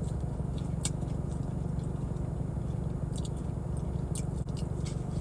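Steady low rumble of a car left running with the air on, which the owner takes for the air conditioning, with a few small crisp clicks of chewing food close to the microphone.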